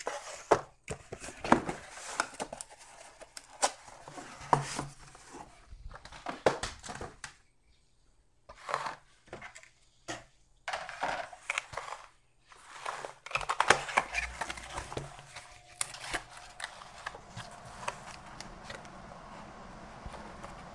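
Motherboard packaging being handled: cardboard box parts and packing rustling and crinkling, with scattered knocks and clicks and a short quiet pause about eight seconds in.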